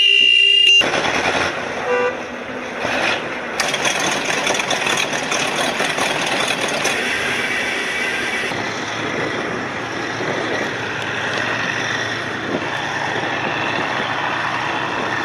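A horn sounds a steady multi-tone note that cuts off under a second in. It gives way to the loud, steady noise of many heavy military vehicles' engines running.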